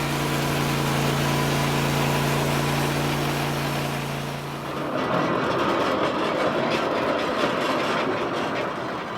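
Portable sawmill engine running steadily. About halfway through the steady hum gives way to a rougher, noisier sound without a clear pitch, which fades away near the end.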